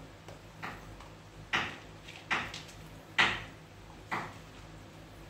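Golden retriever eating dry kibble from a plastic bowl: about five sharp crunches and knocks of kibble and bowl, spaced about a second apart, the loudest a little past the middle.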